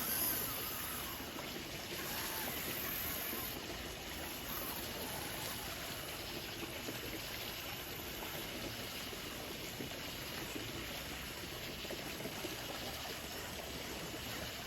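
Small waterfall and stream water running steadily, a continuous splashing trickle.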